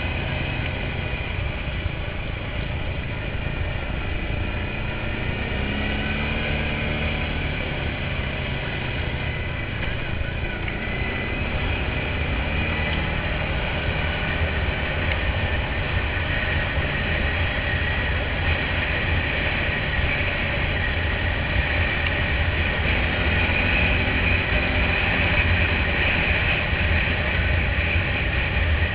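ATV (quad bike) engine running under way on a dirt forest track, with a steady low rumble of wind and ground noise on the onboard microphone. A high whine grows stronger and the whole sound gets gradually louder through the second half.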